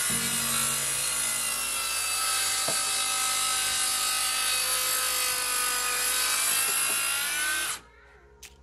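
Makita cordless track saw running along its guide rail, cutting through wood with a steady whine. It stops abruptly near the end.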